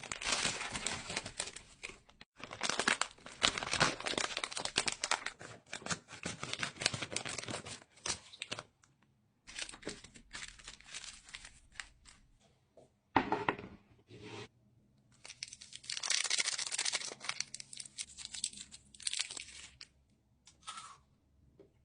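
Sweet and chocolate wrappers and packaging being torn open and crinkled by hand, in stretches of rustling and crackling broken by short pauses.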